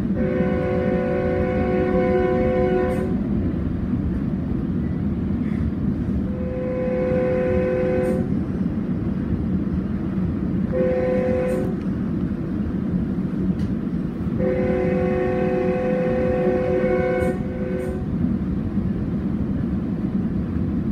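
Train air horn sounding a chord in the grade-crossing pattern: long, long, short, long. Under it runs the steady rumble of a train in motion.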